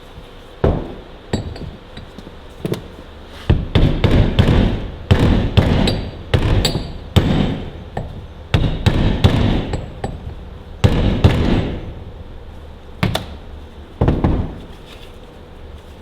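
Hammer blows tapping a new oil seal into the PTO shaft housing of a Ferguson TEA20 tractor. There are about two dozen irregular strikes, a few spaced out at first, then quick runs in the middle, and two more near the end.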